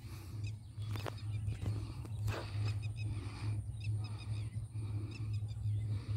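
Open-field ambience: a steady, slightly pulsing low rumble under a few faint, scattered bird chirps.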